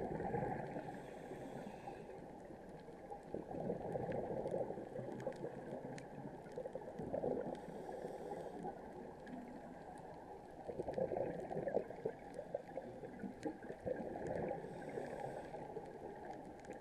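Scuba diver's regulator breathing heard underwater: exhaled bubbles gurgle in swells about every three and a half seconds, with a fainter hiss of inhaling through the regulator between them.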